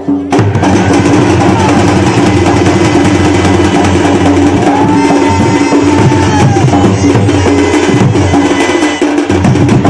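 Folk dance music: a dhol drum beaten in a fast, dense rhythm, with a hand-held wind pipe playing long held notes over it.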